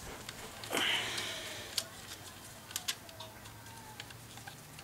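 A screwdriver and gloved hands working on a blower motor's metal mounting bracket: a short scrape about a second in, then a few light clicks, over a faint steady low hum.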